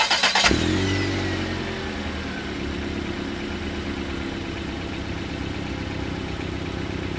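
1957 Ford Thunderbird's V8 with mellow mufflers running: a brief rapid clatter in the first half second, then the revs fall over about two seconds and settle into a steady idle.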